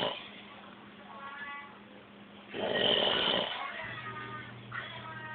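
Snoring, about one loud snore every three seconds: the tail of one at the start and a full snore near the middle.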